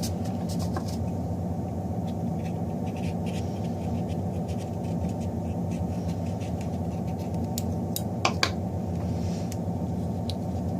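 Faint scratching and clicking of hands and scissors working at leathery ball python eggs, over a steady low hum, with one sharper double click about eight seconds in.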